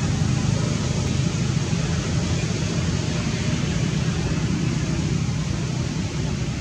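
Steady low rumble with an even hiss over it, with no distinct calls or knocks.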